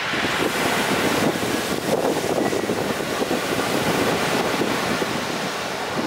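Storm surf on the Black Sea: waves breaking and washing up a pebble beach, a loud, steady rush of white water.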